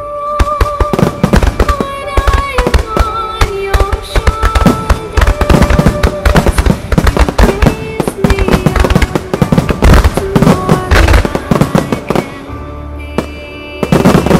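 Dense, rapid barrage of starmine firework shell bursts, with music playing alongside. The bursts thin out about twelve seconds in, then one heavy burst comes near the end.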